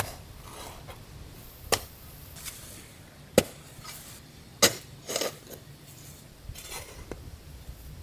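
A long-handled hoe chopping into hard red soil: about six sharp, separate strikes at uneven intervals as the ground is dug.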